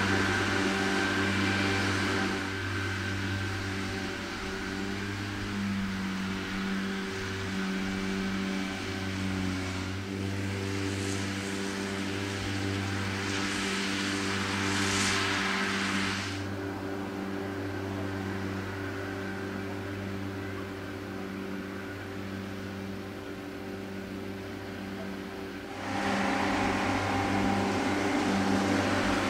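John Deere tractor running steadily under load while its front and side mowers cut standing grass: a steady engine hum with a hiss over it. It gets louder for the last few seconds.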